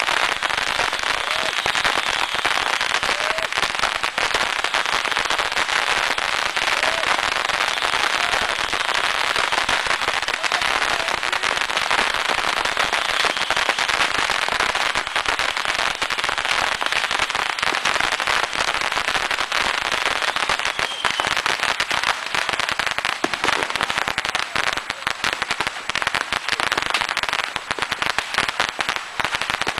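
Beehive rocket barrage: hundreds of bottle rockets firing from a beehive fireworks rack in a loud, continuous crackle of overlapping bangs and whooshes. Near the end it thins into more separate pops.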